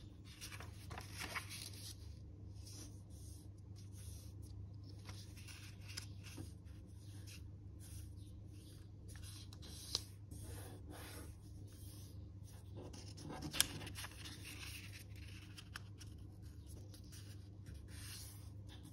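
A sheet of paper being folded by hand on a table: soft, irregular rustling and fingers sliding along the paper to press the creases. There are two sharper clicks, about ten and fourteen seconds in, over a faint steady low hum.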